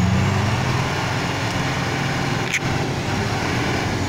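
Tata 3515 tipper truck's diesel engine running steadily while the truck is stuck in mud, with one short, sharp higher sound about two and a half seconds in.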